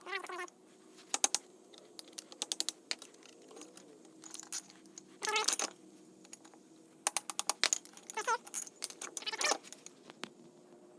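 Irregular light metallic clicks and clinks of small tools working the retaining clips out of a U-joint's bearing caps, with a couple of short squeaks near the start and about eight seconds in.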